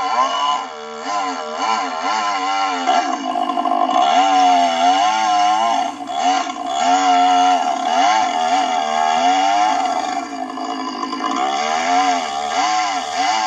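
Stihl 660 two-stroke chainsaw with a 36-inch bar running in a chainsaw mill, ripping a slab lengthwise from a log. The engine stays at high revs throughout, its pitch wavering up and down as the load in the cut changes.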